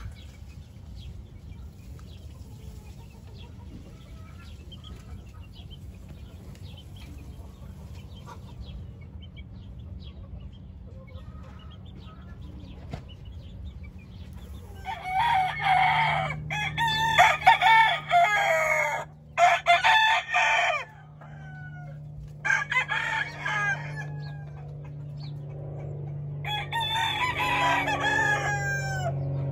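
Roosters crowing, one loud crow after another starting about halfway through, after a quieter stretch with only faint calls. A steady low hum runs under the crows.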